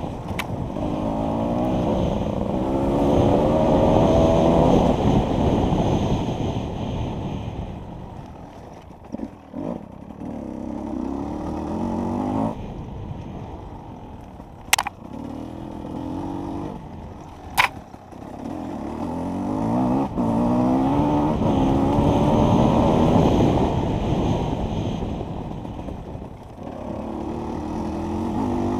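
Enduro motorcycle engine being ridden hard off-road: the throttle opens in repeated rising surges and is then let off, several times over. Two sharp knocks come about 15 and 18 seconds in.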